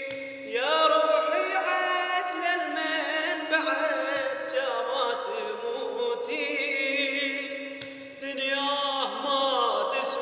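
A male voice singing a slow, ornamented Iraqi Arabic chant with long gliding notes, over a steady held low note.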